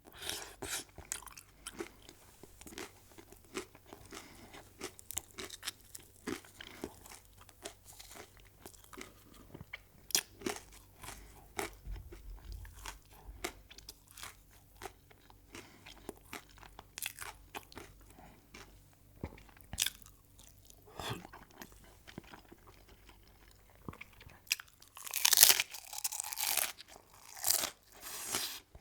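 Close-miked chewing and crunching of crisp food: a steady run of small crunches, with a louder cluster of bites near the end.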